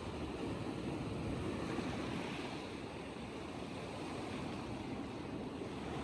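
Small sea waves breaking and washing over a shallow rocky shelf: a steady rushing surf that swells and eases gently.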